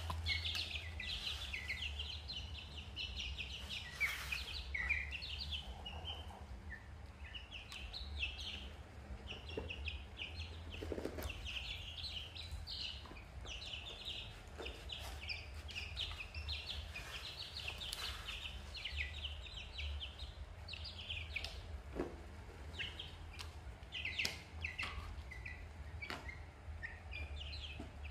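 Many young chicks peeping continuously in quick, high chirps, over a steady low hum.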